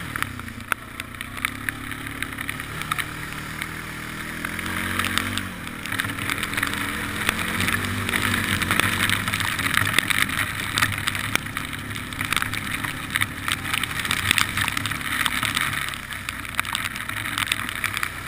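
ATV engine running as the quad rides through standing water and mud, its pitch rising and falling with the throttle, over a steady hiss of water and mud spray with many small sharp clicks.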